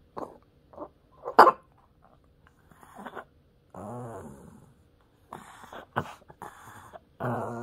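Small dog vocalising in short grumbling, huffing bursts, with one sharp, loud huff about a second and a half in and a longer wavering grumble around four seconds in.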